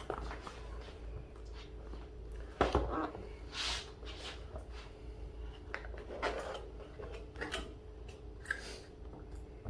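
Cardboard box being opened and its contents unpacked by hand: scattered rustles, scrapes and light knocks, the loudest a knock about three seconds in, over a faint steady hum.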